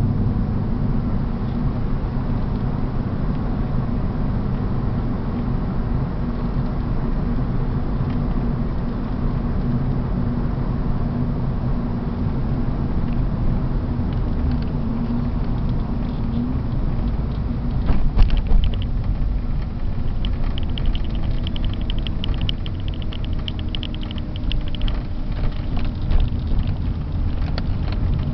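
Cabin noise of a BMW 328's straight-six engine and tyres at road speed, a steady rumble. About two-thirds of the way through there is a short thump, followed by a few seconds of fast, even ticking.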